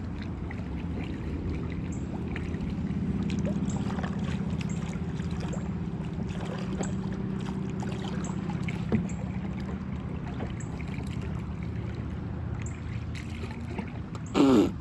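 Kayak drifting on a river: a steady low rumble of water and wind on the microphone, with a few faint knocks. A short loud vocal cry comes near the end.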